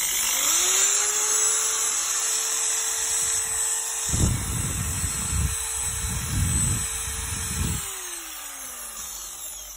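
Interskol DU-750ER 750 W corded impact drill running free in reverse: the motor whine climbs to a steady pitch within the first second, holds, then winds down from about eight seconds in as the trigger is released. A low rumble joins it for a few seconds in the middle.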